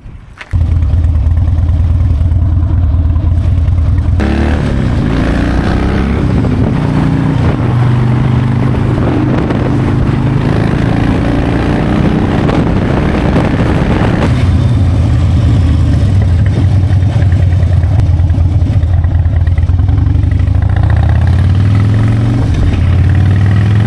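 Harley-Davidson V-twin motorcycle engine running while being ridden. It cuts in suddenly about half a second in, and from about four seconds in a wide rush of wind noise joins it as the bike picks up speed.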